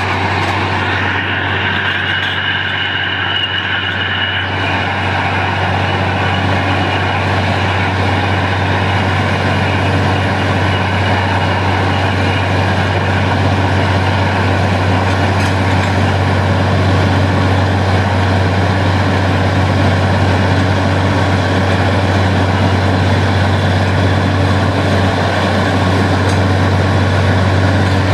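Truck-mounted borewell drilling rig running steadily while it drills, a deep drone with a rushing hiss as rock cuttings are blown up out of the borehole around the drill pipe.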